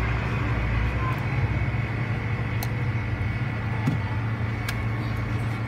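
Steady low hum and background noise of a workshop, with a few faint sharp clicks as a thin metal tool works at a phone's circuit board.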